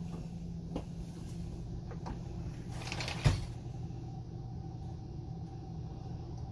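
A shower curtain swished aside along its rod about three seconds in, ending in a sharp knock, over a steady low hum in a small shower room.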